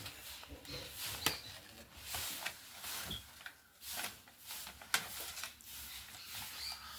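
Rustling and crinkling of a blind bag's packaging as it is opened and its contents handled, with a couple of sharp clicks about a second in and again near five seconds.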